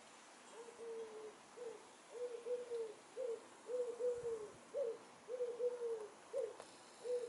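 Common wood pigeon cooing: a repeated series of low coos, long notes alternating with short ones, beginning about half a second in.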